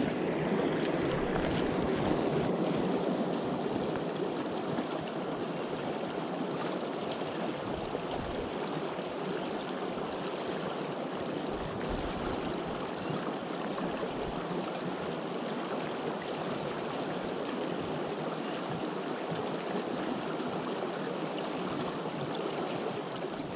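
River water flowing: a steady rush of current, a little louder in the first few seconds.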